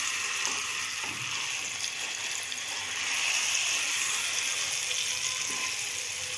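Butter and a tandoori-marinated chicken leg sizzling in a frying pan: a steady frying hiss.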